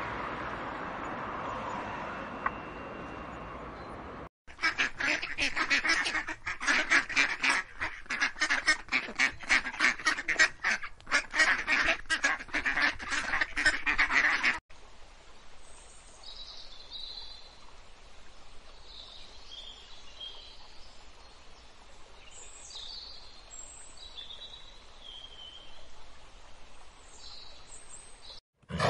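Canada geese honking in quick, overlapping calls for about ten seconds, the loudest sound here. Before them there is a steady hiss, and after them faint, scattered high bird chirps.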